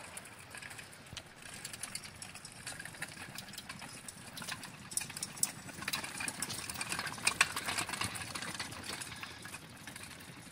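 Homemade pedal-driven buggy rolling over asphalt on large rubber sand paddle tires, its chain and welded frame rattling and clicking as it is pedalled. The clicking is busiest about halfway through.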